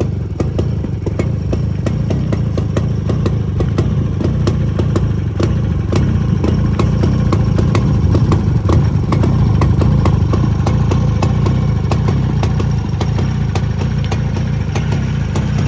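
Jawa 350 type 354 two-stroke twin-cylinder motorcycle engine running steadily at idle, with a rapid clatter of sharp ticks over its low exhaust note.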